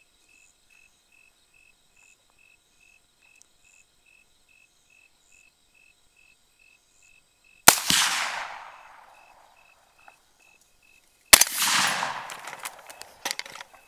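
Two .300 Blackout rifle shots, the first about halfway in and the second close to four seconds later. Each is a sharp crack followed by a long echo that fades over one to two seconds.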